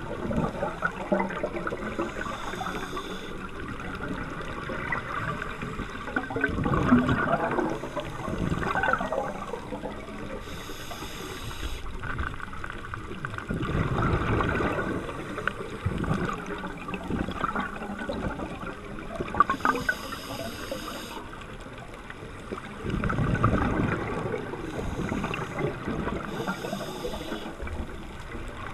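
Scuba diver breathing through a regulator underwater. Each breath in is a short hiss, and each breath out is a longer rush and gurgle of exhaust bubbles. There is a breath about every eight or nine seconds.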